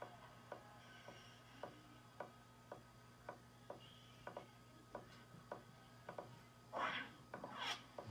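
Faint, regular ticking about twice a second over a low steady hum, with two louder brief rustling sounds near the end.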